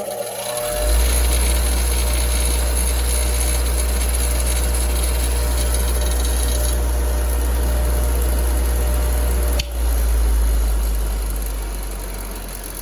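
DeWalt DW756 6-inch bench grinder running up to speed and spinning with a steady low hum, a DW4904 wire wheel brush fitted on one side. The brush is slightly too thick for the guard and rubs lightly against the side of the shield despite a plastic spacer. There is a brief click and dip about ten seconds in, and the sound eases gradually near the end.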